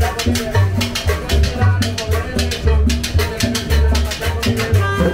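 Live street combo playing a Latin dance tune: timbales and cymbal strokes keeping a steady beat over deep upright-bass notes.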